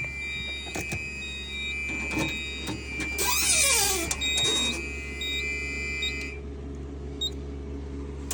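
Fire alarm notification appliances sounding a steady high tone with short repeated beeps over it, cutting off about six seconds in. A louder hiss with falling pitch sweeps breaks in about three seconds in.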